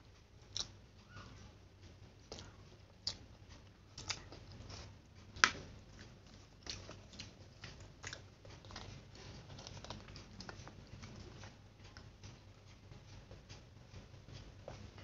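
Close-up eating sounds of a person chewing fried instant noodles: soft chewing and mouth noises broken by scattered short, sharp clicks, the loudest about five and a half seconds in.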